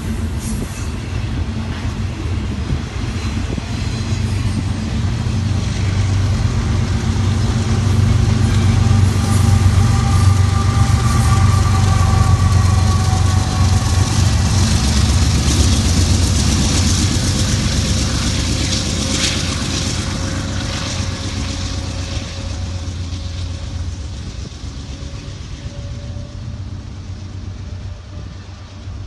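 Two BNSF diesel-electric locomotives on a double-stack container train going by close: a deep, steady engine drone with wheel-on-rail noise that builds to its loudest in the middle as the locomotives pass, then fades as the train moves away.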